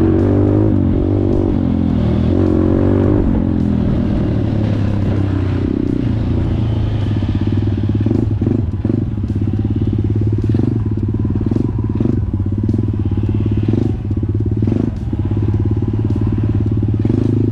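Off-road motorcycle engine running as it is ridden, its pitch rising and falling over the first few seconds and then holding steadier, with short clicks and knocks through the second half.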